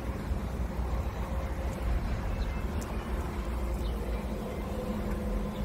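STILL R60-30 electric forklift driving and turning: a steady motor hum over a low rumble, a little stronger near the end.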